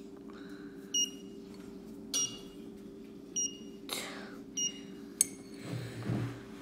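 Buzzer on an Arduino water-level indicator beeping: short, high beeps about every 1.2 seconds over a steady low hum, with a click or two of handling in the second half.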